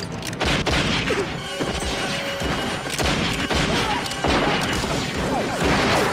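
Revolver gunfight: many gunshots cracking in quick succession with echoes, over background film music.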